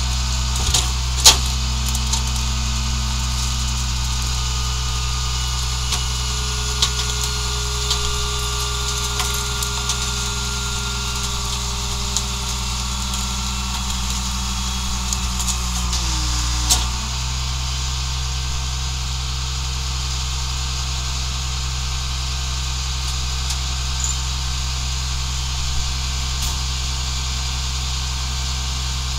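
New Way rear-loader garbage truck cycling its hydraulic packer: the truck's engine idles steadily under a hydraulic whine that slowly falls in pitch, then drops away with a knock about 17 seconds in. A sharp metallic clank about a second in.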